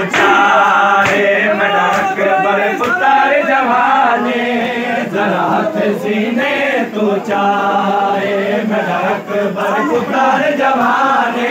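A crowd of men chanting a Punjabi noha in unison. Their voices are punctuated by sharp hand slaps on bare chests (matam), coming roughly once a second.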